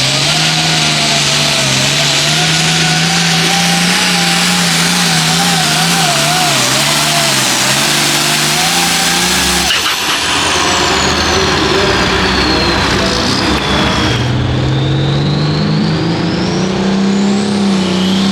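Hot farm pulling tractor's diesel engine running flat out under load during a pull, loud, its pitch wavering as the sled drags it down. About ten seconds in the sound changes abruptly, and a few seconds later the engine note climbs again.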